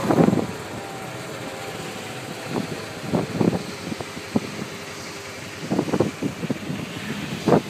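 Kawasaki Mule 610XC utility vehicle's single-cylinder engine running, dropping from higher revs to a steady low run just after the start. Short knocks and rattles come through now and then, more of them near the end.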